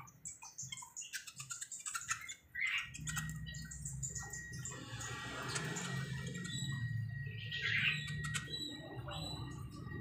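Small caged songbirds chirping in short high calls, with a few sharp clicks from the wire cage as a hand works at its front. A low steady hum starts about three seconds in.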